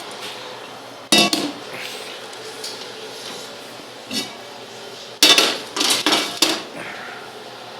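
Metal cookware clattering: a sharp clank about a second in, a lighter knock around four seconds, then several clanks in quick succession between five and six and a half seconds in.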